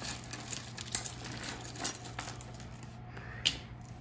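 Metal costume jewelry clinking and jingling as it is handled: a heavy strand of small silver rings rattles, with a few sharper clicks, the loudest about two seconds in.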